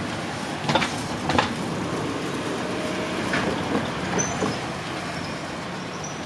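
A JR Gotemba Line train running on the rails: a steady rumble with a few sharp wheel clicks over rail joints, and several brief high wheel squeals in the second half.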